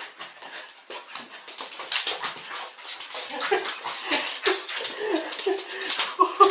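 A dog whimpering and whining in short, wavering cries that begin about halfway through, typical of a dog excitedly greeting its returning owner. Quick clicks and scuffles run through it all.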